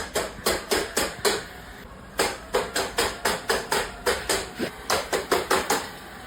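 A series of sharp knocks or taps, about three a second, unevenly spaced.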